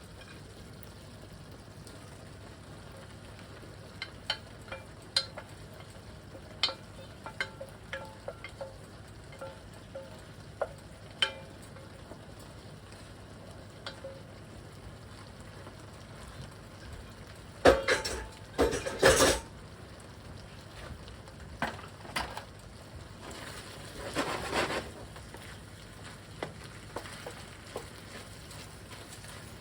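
Food being stirred in a pan: scattered light clicks of a utensil against the pan, then two louder noisy stretches of a second or two each, the first about two-thirds of the way in and the second a few seconds later.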